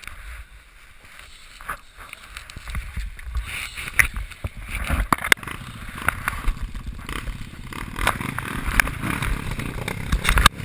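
Dirt-bike engines running at idle: a low, pulsing rumble that grows from about two seconds in. A few sharp knocks sound over it.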